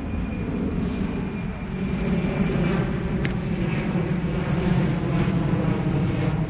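Steady low rumble of outdoor background noise, even in level with no distinct events.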